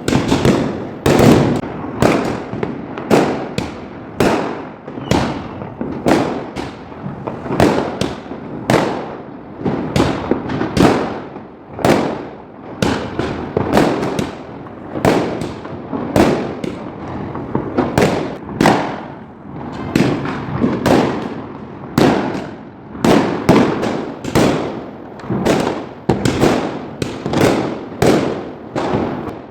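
Fireworks and firecrackers bursting continuously for Diwali, a rapid run of loud bangs about two or three a second, each followed by a short echo.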